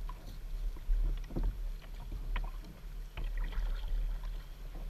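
Double-bladed kayak paddle strokes in lake water: a few splashes as the blades dip in and pull, with drips, over a steady low rumble.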